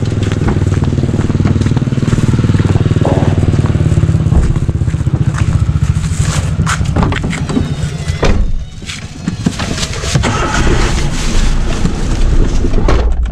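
Motorcycle engine running as it rides along, with a brief dip in the engine sound a little past halfway.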